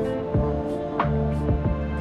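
Background music: sustained chords with plucked notes striking every half second or so.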